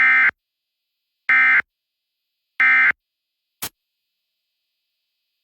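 Emergency Alert System end-of-message signal: three short bursts of warbling digital SAME data tones (the "NNNN" code), evenly spaced about a second and a half apart, closing the required monthly test. A brief click follows a little later.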